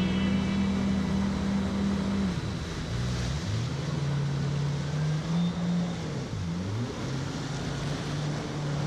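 Jet ski engine running close beneath the rider. Its pitch is steady at first, then drops a couple of seconds in and rises and falls as the throttle is eased and opened again, with water rushing past the hull.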